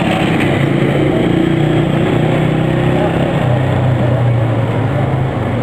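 A motor engine running steadily close by, its pitch slowly falling in the second half.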